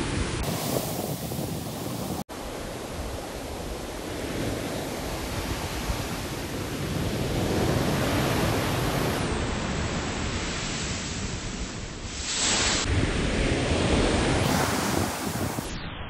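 Shore-break waves crashing and washing up a sand beach, a continuous rush of surf that swells louder for a few seconds near the end. There is a sudden brief drop-out about two seconds in.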